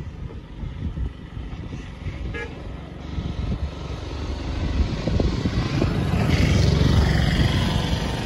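Low rumble of a passing motor vehicle, swelling to its loudest about seven seconds in, with a short horn toot about two seconds in and wind buffeting the microphone.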